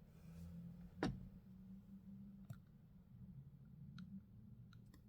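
Faint clicks from a small plastic toy pendant being handled: one clearer click about a second in, then a few softer ticks, over a low steady hum.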